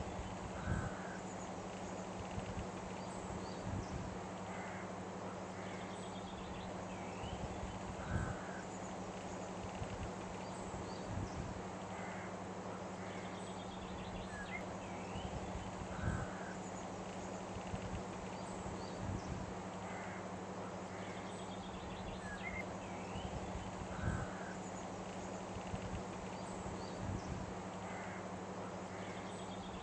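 Looped nature ambience: scattered bird calls and chirps over a steady hiss and a low steady hum. The same pattern of calls comes round about every eight seconds.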